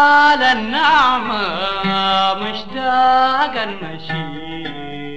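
Instrumental passage of Sudanese band music: a melody held on long notes, with a fast wavering ornamented run about a second in, over the band's accompaniment.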